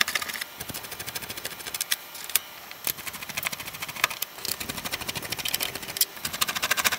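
A screwdriver turning screws out of a boom box's chassis, in several runs of rapid clicking.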